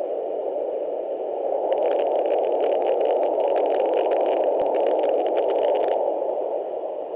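Handheld fetal Doppler's speaker giving a steady windy whooshing noise, with scratchy crackling on top from about two seconds in until near the end, as the probe moves.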